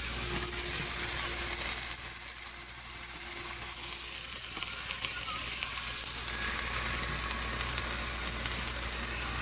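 Steady sizzling from a soup pot, where sautéed vegetables and spices are frying as thawed raw pumpkin goes in.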